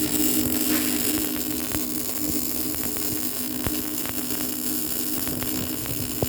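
Weldteco MIG 270F MIG welder laying a weld: a steady hiss and crackle from the arc, with scattered sharp pops over a steady low hum.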